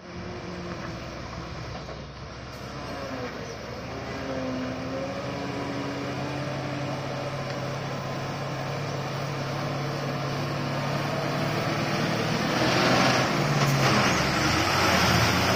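Heavily loaded Ashok Leyland multi-axle truck's diesel engine labouring as it climbs uphill, growing steadily louder as it approaches and loudest as it passes close by near the end.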